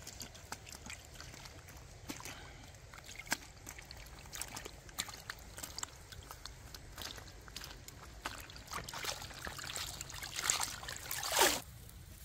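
River water splashing and sloshing as a wicker basket of mushrooms is swished and rinsed by hand in the shallows: small irregular splashes throughout, building to a louder stretch of sloshing near the end.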